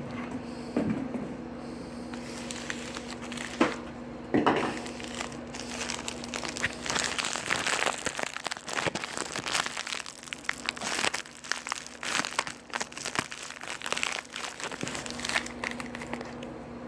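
Packing material in a shipping box being crumpled and pushed aside while the parcel is unpacked: a long run of crinkling and crackling, with a couple of knocks about four seconds in.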